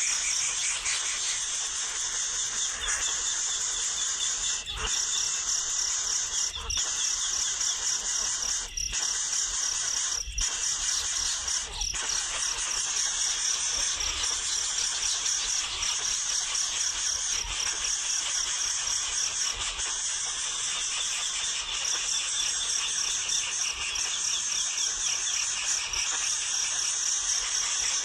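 Nestling birds calling without let-up in a dense, high-pitched chirping chorus, with a few brief pauses in the first half.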